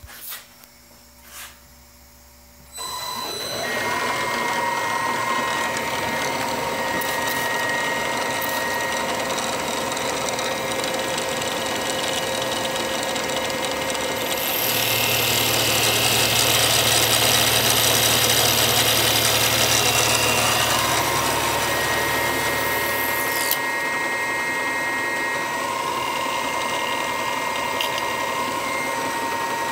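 CNC knee mill starting up about three seconds in and then running with a steady whine. For about nine seconds in the middle it gets louder, with a hiss and a low hum, as the 2-flute 13/16-inch end mill cuts a counterbore into the end of an aluminum extrusion.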